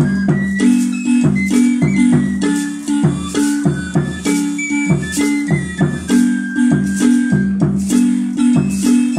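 Guatemalan marimba ensemble playing a son: mallets strike a rhythmic run of wooden-bar notes over held low tones, with hand-shaken maracas rattling along.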